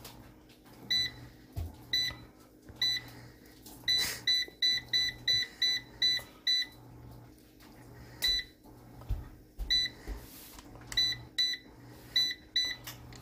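Gourmia digital air fryer's touch control panel beeping once with each button press: short identical high beeps, a few spaced out, then a quick run of beeps as the temperature is stepped down, then more single beeps and a short run as the cook time is set.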